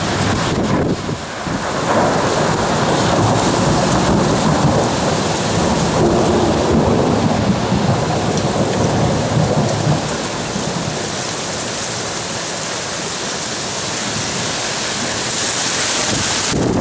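A long rumble of thunder over steady rain. The rumble swells about two seconds in and dies down about ten seconds in, leaving the rain.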